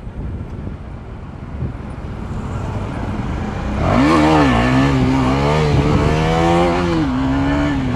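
KTM Duke's single-cylinder engine going from low speed with wind rumble to a sharp rise in revs about four seconds in, as the rider launches a wheelie. The engine is then held at high revs, wavering slightly, and eases a little near the end.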